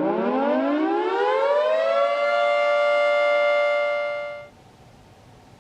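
Whelen 2906 electronic outdoor warning siren sounding a tone that rises in pitch over about two seconds, holds steady, then cuts off suddenly about four and a half seconds in.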